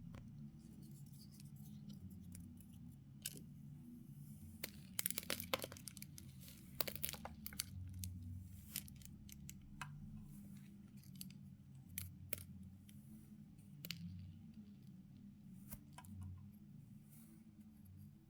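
Kinetic sand mixed with beads being cut and squeezed: scattered sharp crackles and clicks, thickest about five to seven seconds in, then sparser.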